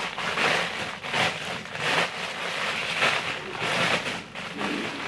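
Rustling and crinkling of packaging handled and pulled open by hand, in irregular surges.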